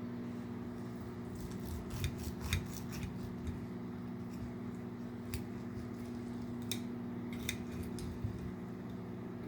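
Cutlery clicking and scraping against a dish in short, scattered strokes as cooked beef ribs are cut apart, over a steady low hum.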